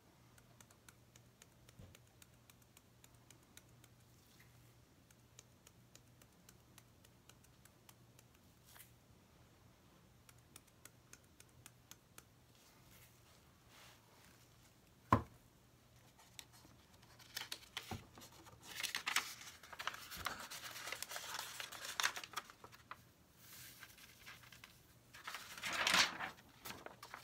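Sheets of printer paper rustling and crinkling as they are handled and folded, in stretches through the last third, after a single sharp knock about halfway through.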